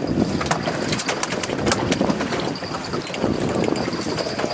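Irregular quick taps and slaps of freshly caught torpedo scad flapping on the boat deck, over the steady running of the boat's engine.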